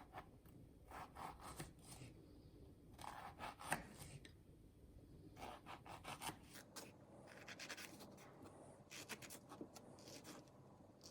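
Faint scratching and rustling of small handling sounds: short strokes a second or so apart, coming closer together near the end, over quiet room tone.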